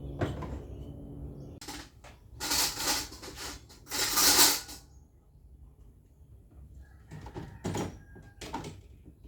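Household handling noises during refrigerator cleaning: two short bursts of rustling or wiping noise, then a few light knocks and clatters as items are set down or moved.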